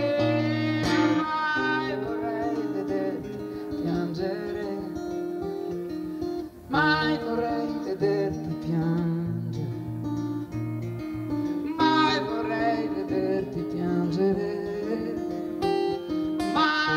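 Live song: acoustic guitar playing over a bass line of held low notes, with a singing voice coming in for short phrases several times.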